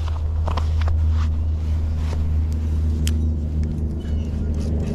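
Steady low rumble with a constant hum, with a few light ticks and clicks over it.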